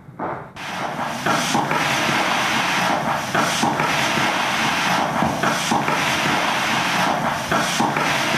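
Loud, dense hiss of amplified noise that starts abruptly about half a second in and holds steady, with irregular crackles running through it.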